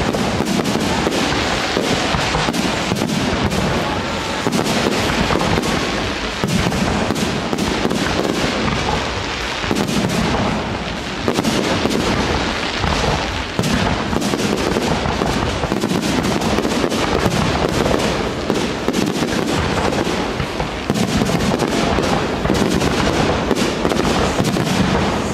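Professional fireworks display: aerial shells bursting in a rapid, unbroken barrage of bangs.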